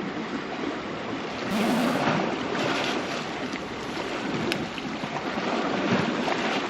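Sea waves washing on the shore with wind on the microphone, a louder surge of water about a second and a half in, and one sharp click midway.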